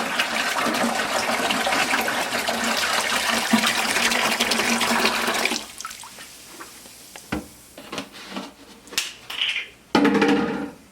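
Vinegar pouring steadily from a jug into a bucket, stopping about five and a half seconds in; a few light knocks and clicks follow.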